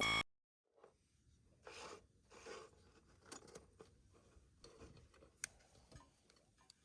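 A music cue ends abruptly at the very start, followed by faint, scattered clicks, soft taps and short rustles of small objects being handled.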